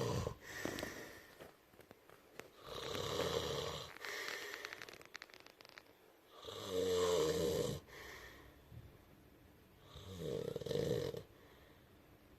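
Snoring, one snore every few seconds with quiet gaps between. One snore has a fluttering rasp, and the loudest, just after the middle, has a clear low pitched drone.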